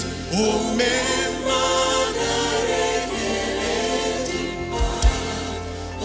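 Live gospel music: voices singing over band accompaniment with a steady bass, and a sharp low drum thump about five seconds in.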